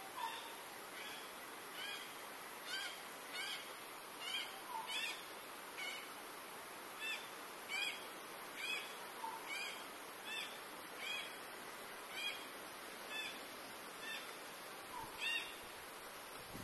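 Forest birds calling: a short, arched chirp repeated once or twice a second, with a softer, lower call every few seconds, over a steady high-pitched drone.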